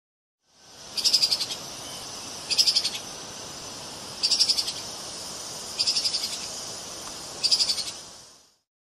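Treeshrew (Tupaia) calls: five short, high-pitched rapid trills, one about every second and a half, over a steady hiss.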